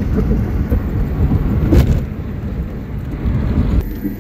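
Road and engine noise heard inside a moving car, a steady low rumble, with a single knock about two seconds in. Near the end it drops suddenly to a quieter hum.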